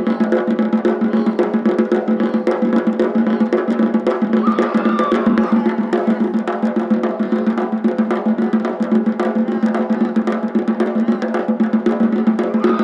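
Gojinjo daiko taiko drums played in a fast, unbroken drumming with dense, even strikes over a steady booming drum body.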